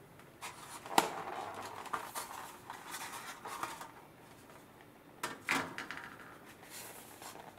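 Thin clear plastic lid of a packaged vegetable tray crinkling and clicking as hands handle it and pull it off. There is a sharp snap about a second in and another loud crackle about five and a half seconds in.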